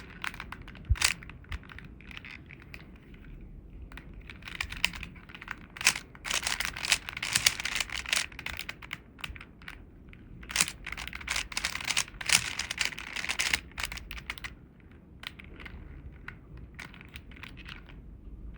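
Plastic Rubik's Cube layers being turned by hand: quick runs of clicking and clacking in bursts, with short pauses between runs of turns.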